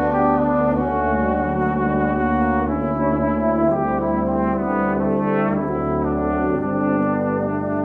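Geneva Cardinal Professional cornet playing a slow, legato melody of held notes, moving smoothly from note to note.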